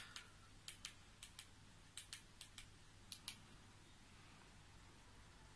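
Faint plastic button clicks from the controller used to navigate the TV box, about a dozen in quick pairs over the first three and a half seconds, then only faint room hiss.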